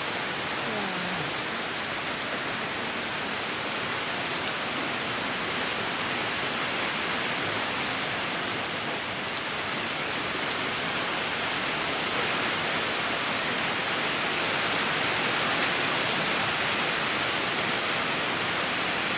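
Heavy tropical rain falling steadily, a dense even hiss that grows slightly louder in the second half.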